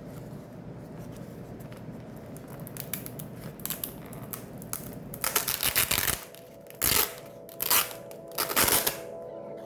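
Food packaging being torn open and crinkled: several short scratchy rustling bursts in the second half, over a low steady background hum.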